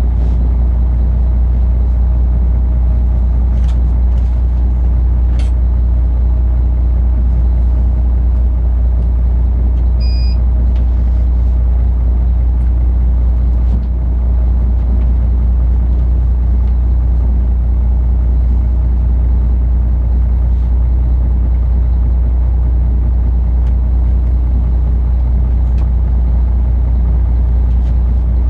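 Inland cargo ship's diesel engine running steadily with a deep, even drone. A short high electronic beep sounds once, about ten seconds in.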